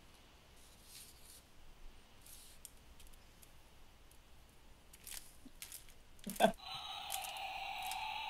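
A few faint clicks and rustles of objects being handled, the sharpest about six and a half seconds in. Then a steady buzzing whir starts near the end and runs on.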